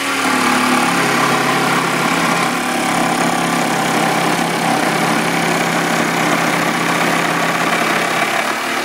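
Milwaukee M12 cordless jigsaw cutting through a piece of countertop, its motor and reciprocating blade running at a steady pitch. It stops shortly before the end.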